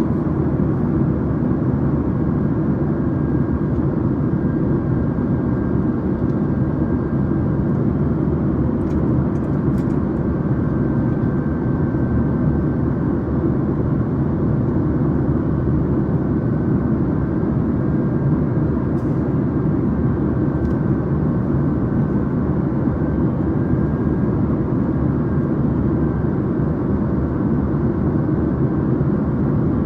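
Airplane's steady low drone of engines and airflow, with a faint steady whine above it.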